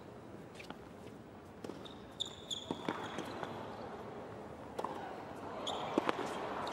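Hard-court tennis rally: several sharp pops of racket on ball, spaced roughly a second or more apart. High sneaker squeaks on the court surface come a couple of seconds in and again near the end, over faint crowd noise.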